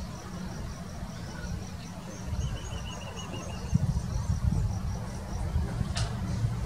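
Outdoor ambience: a steady low rumble, with faint rapid high-pitched chirps repeating and a short trill about two seconds in, then a single sharp click near the end.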